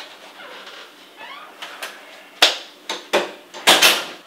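A handful of sharp knocks and clatters, quiet at first and then coming closer together, with the loudest cluster near the end.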